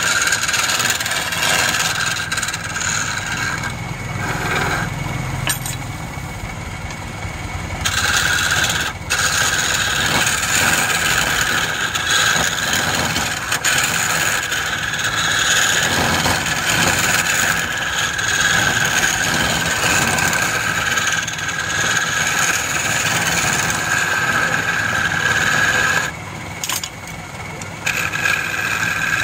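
Wood lathe running while a hand-held turning chisel cuts a spinning wooden blank, giving a steady scraping with a high ringing tone over the motor. The cutting tone drops away twice for a few seconds, about two seconds in and again near the end.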